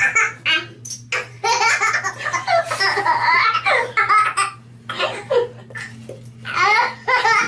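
Baby laughing hysterically in repeated bursts of belly laughs and giggles.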